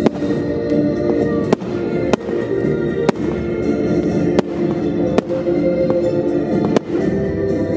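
Fireworks shells bursting in sharp bangs, about eight of them spaced under a second apart, over music playing along with the pyromusical show.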